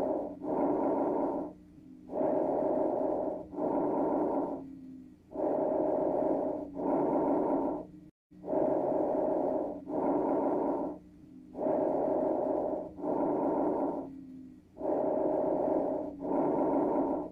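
Lung sounds heard through a stethoscope: about six breath cycles, roughly one every three seconds, each an inhalation and an exhalation of a little over a second with a short pause between. Both phases have a steady, pitched, musical quality.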